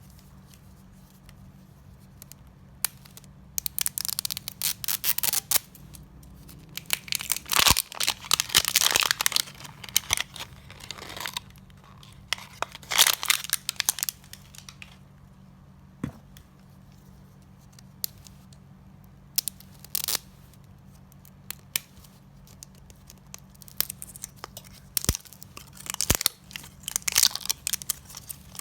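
Toy packaging being torn open and crinkled by hand while an L.O.L. Surprise Lil doll is unboxed, in several spells of tearing and rustling with quieter pauses and a few sharp clicks between.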